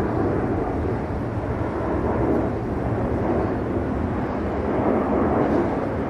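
Distant engine noise: a steady low roar that swells and eases slightly, with no distinct tones or knocks.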